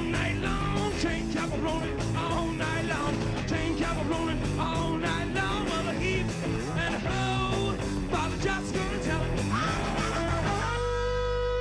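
Hard rock band playing live: distorted electric guitars, bass and drums, with the singer's voice over them at the start. About ten and a half seconds in, everything drops to one held, distorted electric guitar note that keeps ringing.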